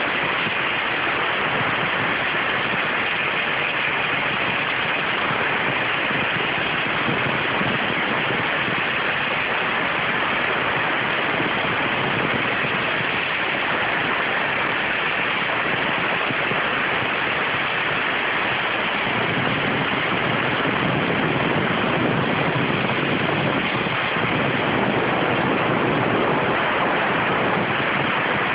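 CNC waterjet cutting thin stainless steel sheet: a steady hiss of the high-pressure water jet, with a little more low rumble in the second half.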